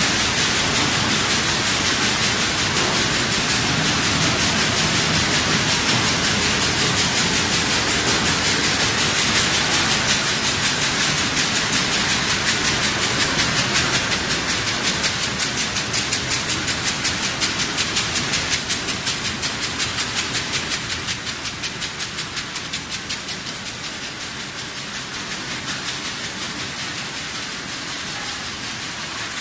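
Pepper destemming and deseeding production line running: machinery noise with a steady loud hiss and a fast, even rhythmic clatter, which eases off somewhat in the last third.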